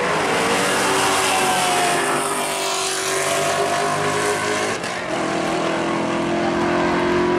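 1971 Chevrolet Camaro drag car and a Ford Mustang launching side by side and accelerating hard down a drag strip, engines at full throttle. The engine note drops briefly about five seconds in, then carries on at a new steady pitch.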